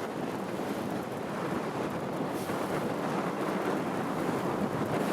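Steady rush of wind on the microphone mixed with sea water and waves, as heard from a boat at sea.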